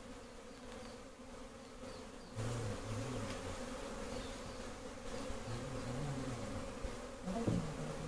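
A swarm of honey bees buzzing steadily, growing louder about two and a half seconds in, with single bees humming close by now and then.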